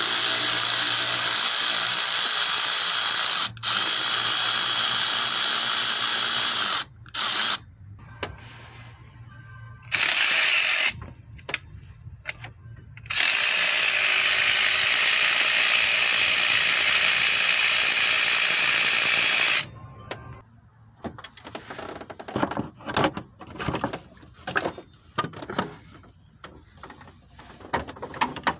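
Milwaukee M12 cordless 3/8-inch extended-reach ratchet running in several long bursts, the longest about six seconds, as it turns the alternator mounting bolts. From about twenty seconds in, only scattered short knocks and clicks of metal parts being handled.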